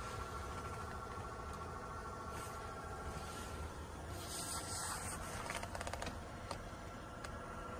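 Faint rubbing and rustling with a few light clicks about two-thirds of the way through, over a low steady hum inside a parked car's cabin.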